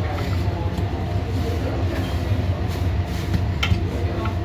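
Steady low mechanical hum with a few light knocks while pizza dough is rolled out with a rolling pin.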